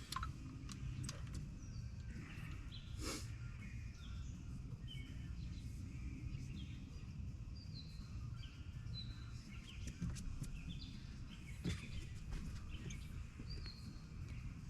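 Small birds chirping, many short calls scattered throughout, over a low steady outdoor rumble, with a few light clicks and knocks.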